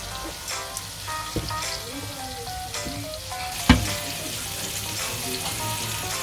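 Chicken karaage pieces deep-frying in hot oil with a steady sizzle. One sharp knock a little past the middle is the loudest sound.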